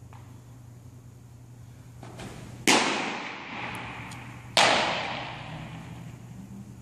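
Two loud, sharp pops of a thrown baseball smacking into a leather glove, about two seconds apart, each ringing on with a long echo through the indoor training hall.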